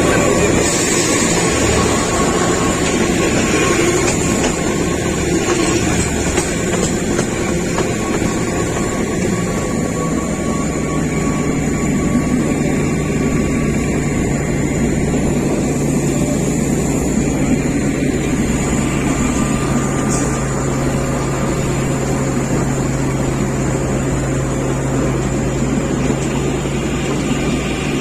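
Kalka–Shimla narrow-gauge toy train running: a steady rumble with a low engine hum that settles into a steady tone about ten seconds in.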